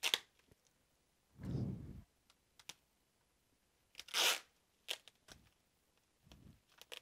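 Packing material being torn and pulled off a tightly wrapped parcel: a few separate rips and crinkles with handling knocks in between, the loudest rip about four seconds in.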